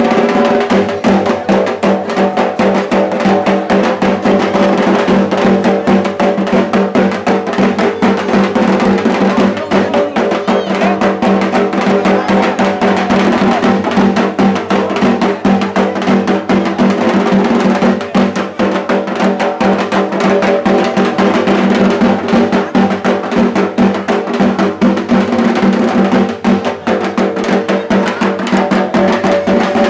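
Dhak drums beaten in a fast, unbroken rhythm, loud and dense with strokes.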